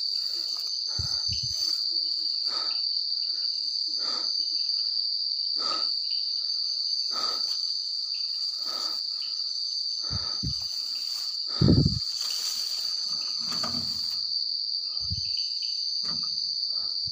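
Night insects chirring in a steady, unbroken high-pitched drone. Irregular soft knocks sound over it, with one louder low thump a little past the middle.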